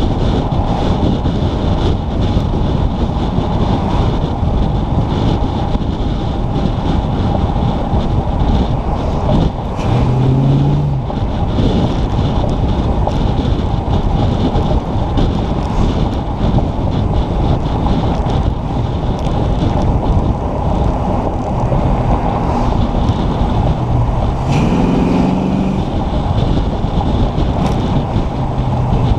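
Car driving with wind buffeting a hood-mounted camera's microphone over a steady rumble of engine and road noise. About ten seconds in, and again near the end, a brief rising engine note comes through.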